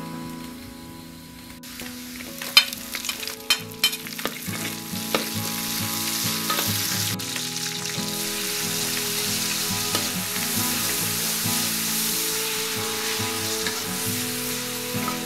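Chopped garlic and scallion sizzling in hot oil in a metal wok, with a metal spatula clinking and scraping several times in the first few seconds. About halfway through the sizzling turns louder and steady as sliced meat is stir-fried with the spatula.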